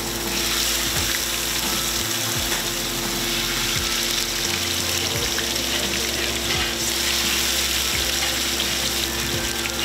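Grouper fillets sizzling in hot oil in a sauté pan on a gas range. The sizzle starts suddenly as the fish goes into the pan and then holds steady as the fillets sear.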